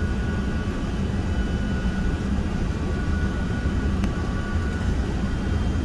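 Steady jet-airliner noise from an Airbus A380-861 with its Engine Alliance GP7200 engines running: a constant low rumble with a faint high whine that comes and goes, and one brief click about four seconds in.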